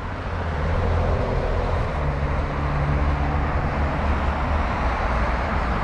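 Road traffic: a steady rumble of engines and tyre noise from passing vehicles, swelling over the first second.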